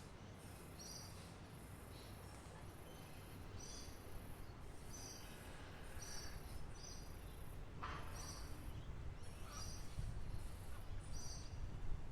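Small birds chirping in short, high double notes repeated roughly once a second, over a high pulsing buzz and a low steady rumble. One call sweeps downward about eight seconds in.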